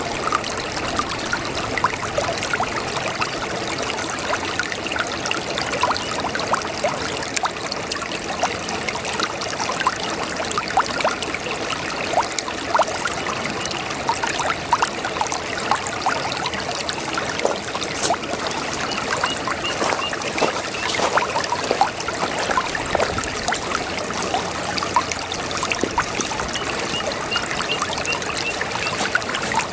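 Brook babbling: a steady trickle of running water with constant small bubbles and splashes.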